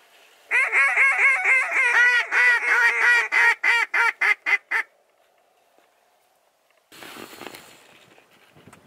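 Handheld duck call blown in a fast run of loud, nasal quacks, the notes growing shorter and choppier until the run stops about five seconds in: a hunter calling to flocks of ducks flying overhead. A brief rustling noise follows about two seconds later.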